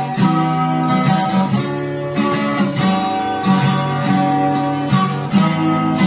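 Acoustic guitar music: strummed chords that change every half second to a second.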